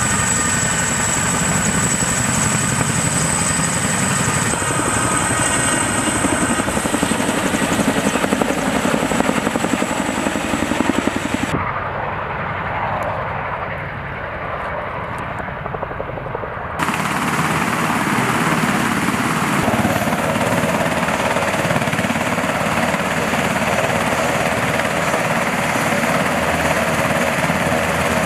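Military helicopter rotors and turbine engines running. First a CH-47 Chinook close by, with a steady high turbine whine. Then, from about twelve seconds in, a quieter, duller stretch of distant helicopters flying, and from about seventeen seconds a UH-60 Black Hawk running on the ground.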